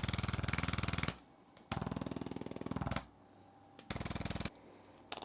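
Percussion massage gun running in three bursts of rapid, even pulsing with short pauses between, the last burst brief, worked over the neck and upper-back muscles.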